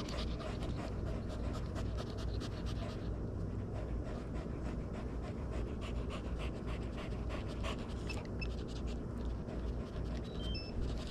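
A dog panting in quick, steady breaths.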